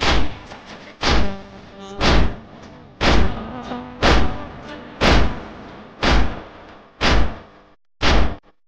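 Rhythmic matam: a heavy chest-beating slap about once a second, steady and even, keeping the beat of a noha. A faint held tone sits underneath for the first few seconds.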